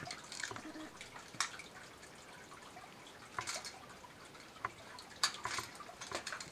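Scattered sharp clicks and snaps, about half a dozen spread over several seconds, from a pole pruner's blade working and cutting shoots at the top of a pear tree.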